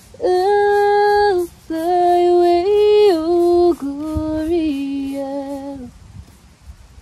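A woman's voice singing a slow wordless tune in long held notes: two phrases, then a lower, softer one that fades out about six seconds in.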